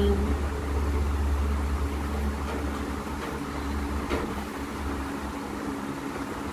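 Steady low hum that thins out after about four seconds, with a single light tap around then.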